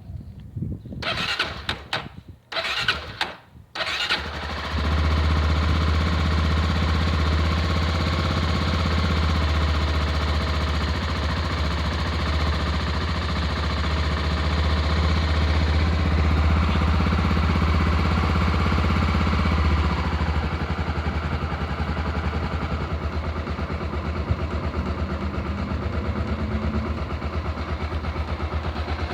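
Honda XR 250 Tornado's single-cylinder four-stroke engine started after a few short bursts, then idling steadily with a strong low, even beat. It gets a little quieter about two-thirds of the way through.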